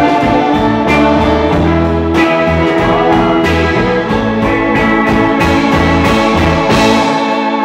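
A rock band playing live, with a sustained electric organ, electric guitar and a drum kit keeping a steady beat. The lowest notes drop out about seven seconds in.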